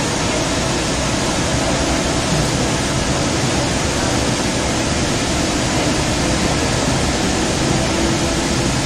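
Steady rushing rumble and hiss inside a Sound Transit Link light rail car as it runs through an underground station.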